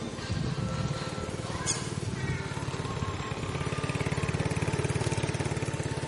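A small engine, most likely a motorbike's, running steadily with a fast even beat, a little louder around the middle.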